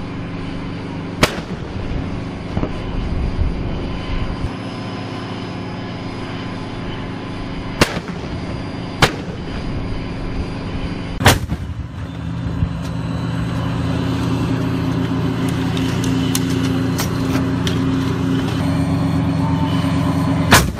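An M109 155 mm self-propelled howitzer's diesel engine runs steadily, growing louder about halfway through. Five short, sharp bangs of cannon fire cut across it, three of them close together in the middle.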